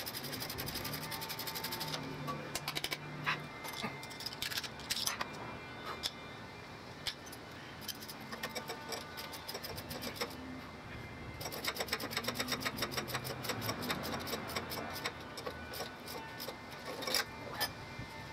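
Ratchet wrench clicking in quick runs while bolts are worked behind a golf cart's rear brake drum, with scattered knocks of the tool against metal in between.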